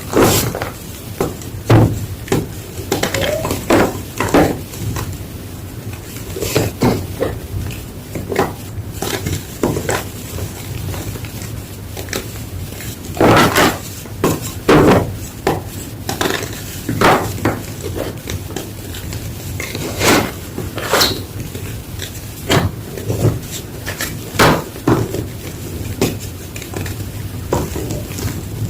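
Gym chalk being crunched: a long string of irregular, sharp crunches, some coming in quick clusters, over a faint steady low hum.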